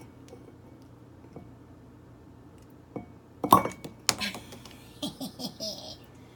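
A screw driven into a wine cork is levered up with a claw hammer, and the cork comes free of the glass bottle with a sharp pop about halfway through. A clack of the hammer or cork follows.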